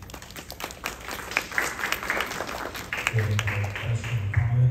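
Audience applauding, a dense patter of hand claps. From about three seconds in a low voice speaks over the clapping.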